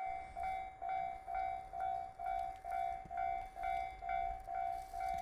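Japanese railway level-crossing warning bell ringing: an electronic ding repeating evenly about twice a second, with a faint low rumble beneath.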